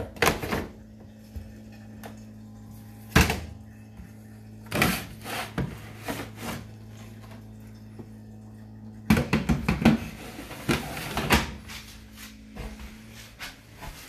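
Knocks, clunks and rustling from handling a tumble dryer's door and the laundry in its drum, with a dense clatter about nine to eleven seconds in. Underneath is a steady low appliance hum that stops about twelve seconds in.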